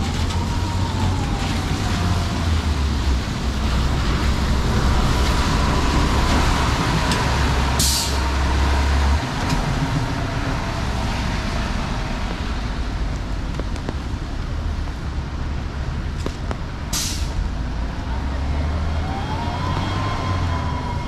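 Rainy city street traffic: a steady hiss of rain and tyres over the low rumble of engines, with a heavy vehicle's whine rising and falling near the start and again near the end. Two short, sharp air-brake hisses, about nine seconds apart.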